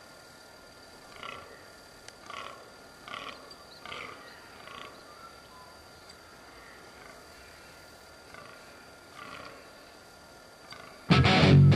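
Distant animal calls: a run of five short, harsh calls a little under a second apart, then one more a few seconds later. Loud rock music with electric guitar cuts in suddenly near the end.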